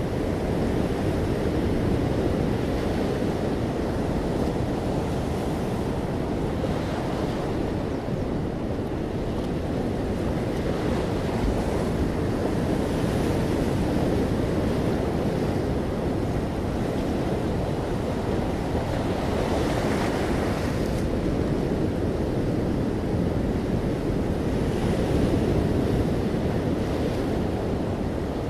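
Ocean surf: a steady low rumble of waves with the hiss of breaking water swelling up every few seconds. Wind noise runs through it.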